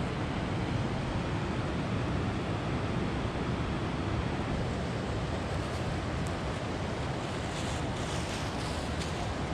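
Steady rushing of a flowing river, even and unbroken, with wind on the microphone; a few faint rustles near the end.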